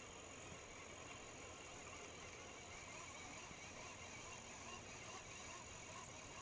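Quiet outdoor background: a faint steady hiss with a thin, constant high-pitched tone and no distinct events.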